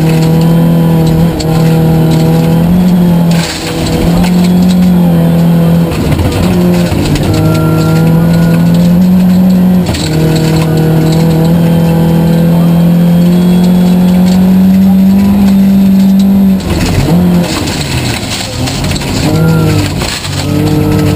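A tuned Volvo 940 rally car's engine, heard from inside the cabin, is held at high revs for several seconds at a time. Its pitch dips briefly every few seconds, and toward the end it rises and falls several times in quick succession.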